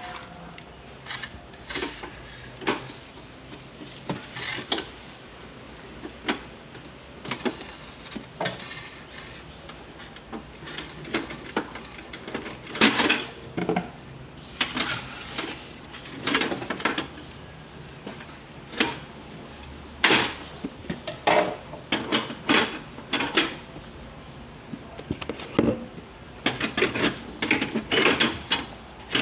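Irregular clatter and knocks of items being handled and unpacked: short hard clicks and bangs, sometimes in quick clusters.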